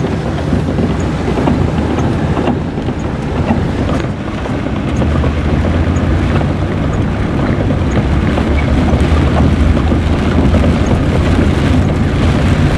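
A vehicle driving on a wet gravel road: a steady low engine and road rumble with tyre noise, a little louder from about five seconds in.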